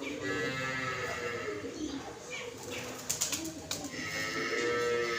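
Birds calling, with a few sharp clicks a little after halfway.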